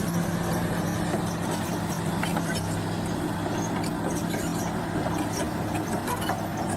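Diesel engine of heavy earthmoving machinery running steadily, with light scattered clicks over it.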